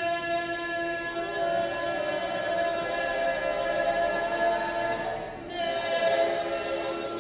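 Mixed student choir singing a cappella in long held notes, breaking off briefly about five seconds in before starting the next phrase.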